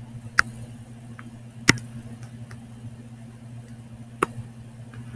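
A few sharp, short clicks of a stylus tapping a tablet screen while the pen highlights cells, spaced a second or more apart, over a steady low electrical hum.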